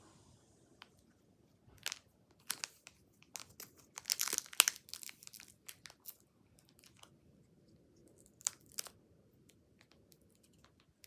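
Foil Pokémon booster-pack wrapper being handled, with scattered crinkling and tearing crackles that bunch into a louder burst about four seconds in.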